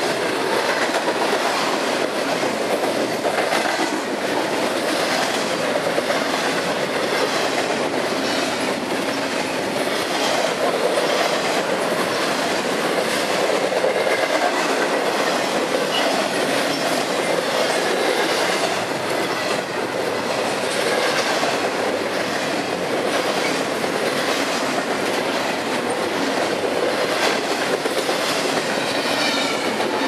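Double-stack intermodal container cars of a freight train rolling past: a steady rumble of steel wheels on rail with a rhythmic clickety-clack as the wheels cross rail joints.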